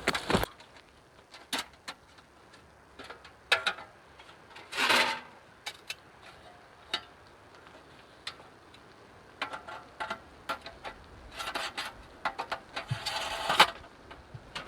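Scattered light knocks and clicks from gear being handled, with a brief rustle about five seconds in and a denser run of knocks and rustling near the end.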